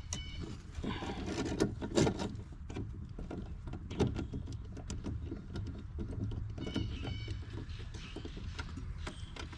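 Scattered clanks and knocks of hand tools and metal parts being handled while taking parts off an old lawn mower, with two louder knocks about two and four seconds in, over a low rumble. A short high-pitched animal call sounds at the start and again about seven seconds in.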